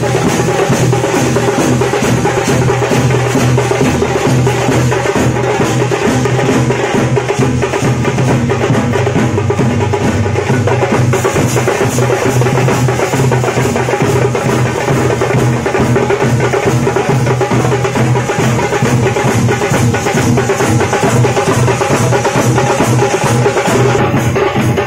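Loud music driven by fast, dense drumming over a steady low drone, cutting in suddenly and running evenly.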